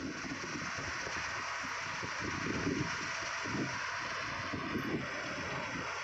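Combine harvester running steadily as it cuts standing wheat, with a few gusts of wind buffeting the microphone.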